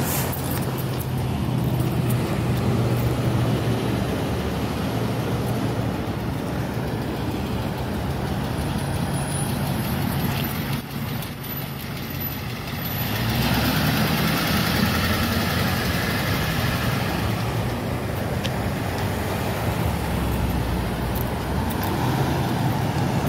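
Road traffic passing steadily. About thirteen seconds in, a box ambulance drives past close by; its engine and tyre noise swell for a few seconds, with no siren.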